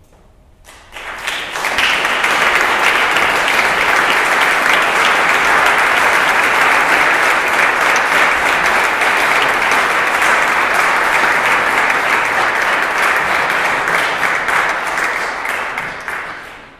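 Audience applauding at the end of a performance. Claps start about a second in, swell quickly into steady, full applause, and fade away near the end.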